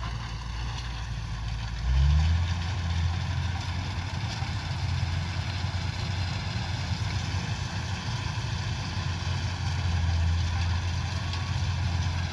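Kubota DC-105X combine harvester's diesel engine running steadily. About two seconds in it picks up speed, rising in pitch and getting louder, then holds at the higher speed.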